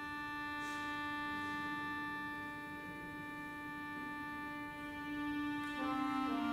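Two piano accordions holding one long, soft sustained chord, which changes to a new chord near the end.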